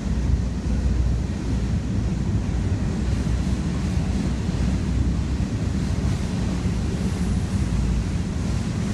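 Freight train cars rolling past: a steady rumble of steel wheels on rails, heaviest in the low end.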